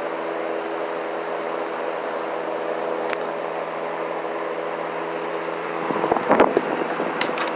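A steady mechanical hum under an even hiss, with some faint voice-like sounds and clicks near the end.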